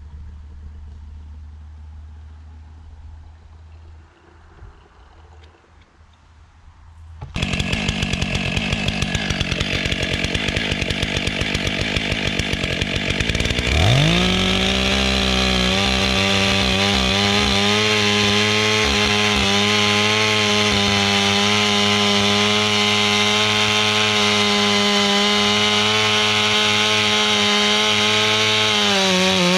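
Stihl MS 661 C-M two-stroke chainsaw, starting abruptly after a quieter opening and running unevenly at low revs. About halfway through it revs up in a rising sweep to full throttle and holds steady high revs as the bar bores into hard beech wood. The pitch sags briefly near the end as the cut loads the engine.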